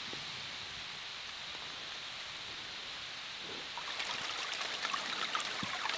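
Steady hiss of water that becomes a busier, slightly louder patter of many small ticks and trickles about four seconds in.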